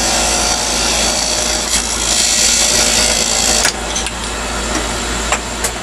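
Wood lathe running with a small skew chisel cutting into a spinning chess piece to part it off: a steady scraping hiss from the cut over the lathe's low hum. It cuts off suddenly about three and a half seconds in, and two sharp clicks follow near the end.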